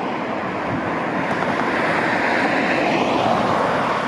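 Steady vehicle noise, a continuous rumble and rush that swells a little in the second half.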